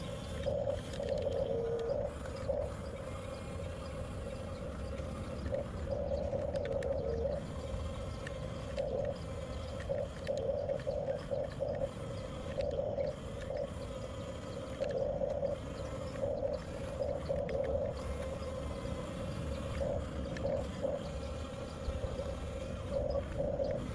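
Electric drive motors and gearboxes of a 1/14 scale RC bulldozer whining as it works, the whine swelling and easing in short irregular spurts as the controls are worked, over a low rumble.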